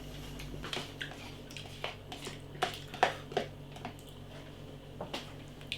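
Someone eating noodles from a pot: faint chewing and slurping with a few soft clicks of a utensil against the pot, over a low steady hum.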